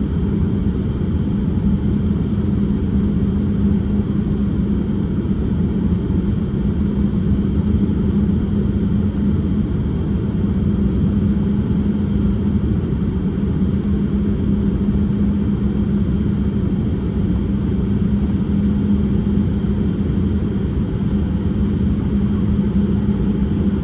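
Cabin noise of a Boeing 787-8 in its climb after takeoff: the steady low rumble of the engines and rushing air, with a steady hum underneath.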